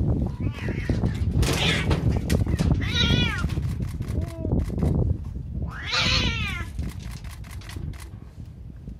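Domestic cats yowling and caterwauling in a fight over a female: about five drawn-out calls, several falling in pitch, the longest and loudest about six seconds in.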